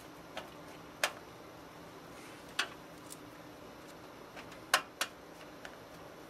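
Irregular sharp clicks and light knocks of hardware being handled while a motherboard is fitted into a PC case, about seven in six seconds, the loudest about a second in and twice close together near the end, over a faint steady hum.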